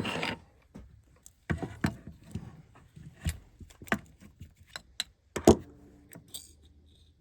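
Scattered sharp metallic clicks and knocks from small parts of a super safety trigger being handled and taken apart to get at the detent spring, the loudest a little over five seconds in.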